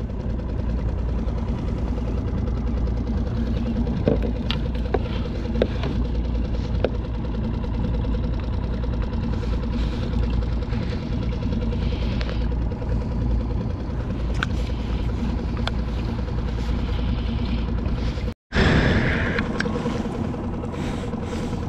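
Small outboard motor of a skiff running steadily at low speed, with a few light clicks of tackle being handled. The sound cuts out for a moment near the end.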